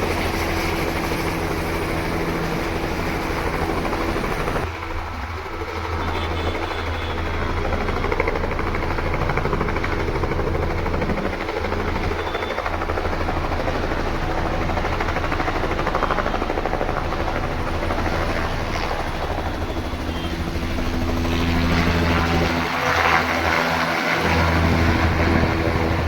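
Joyride helicopter running steadily, its rotor and engine making a continuous low drone with a hiss over it. The sound dips briefly about five seconds in and grows louder and hissier near the end.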